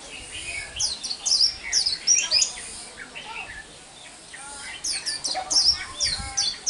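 White-eye singing a fast twittering song of rapid high chirps in bursts, pausing for about a second and a half past the middle before starting again.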